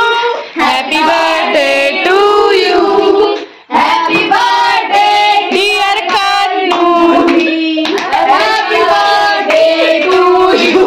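Several voices singing together, with hand-clapping over the singing; the singing breaks off briefly once, a few seconds in.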